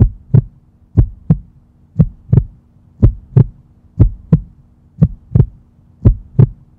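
Heartbeat sound effect: paired lub-dub thumps repeating about once a second over a faint steady low hum.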